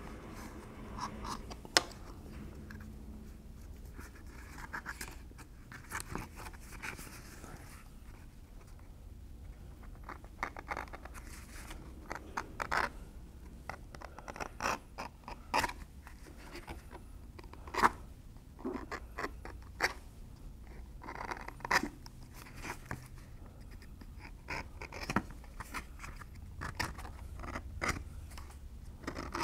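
Edge beveler shaving the edge of a stitched leather holster: short scraping cuts one after another, each peeling off a thin curl of leather, with an occasional sharper click.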